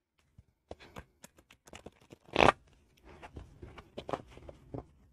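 A deck of tarot cards shuffled by hand: a run of soft card clicks and slides, with one brief louder rush of cards about halfway through.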